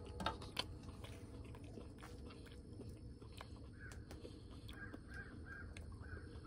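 Crows cawing faintly in the distance, a short run of five or so caws in the second half, over steady low background noise. Two sharp clicks sound just after the start.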